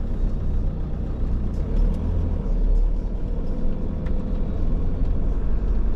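Motorhome on the move: a steady low rumble of engine and road noise.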